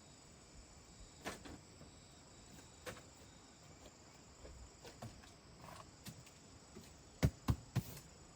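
Scattered light knocks and clicks over a faint, steady high chirring of insects, then three louder sharp thumps in quick succession near the end.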